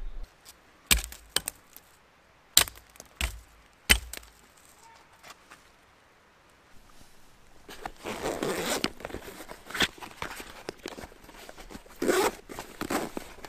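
About six sharp cracks of twigs or wood in the first four seconds. Then rustling of camp gear being handled, loudest about eight seconds in and again near the end.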